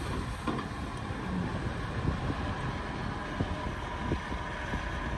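Bulldozer's diesel engine running steadily, with scattered knocks and clanks.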